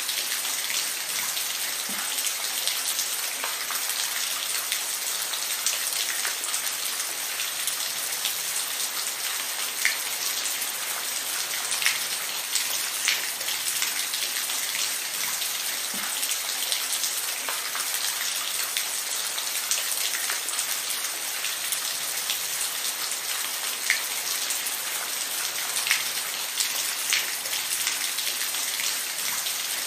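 Steady rain falling, a continuous hiss with many distinct drops pattering on a hard surface.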